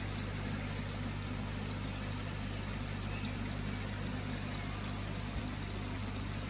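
Steady rush of water running into a koi tank, with a low, even hum from the circulating pump.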